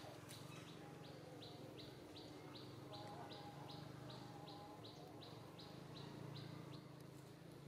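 A faint bird call: an even series of short, high notes, about three a second, that stops near the end.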